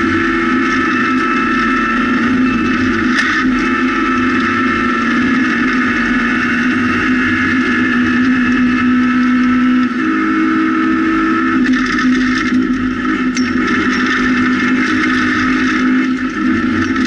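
Rally car engine heard from inside the cabin, running hard at steady high revs on a gravel stage, with gravel and tyre noise beneath it. The engine pitch steps down about ten seconds in and shifts again shortly after, as the revs change.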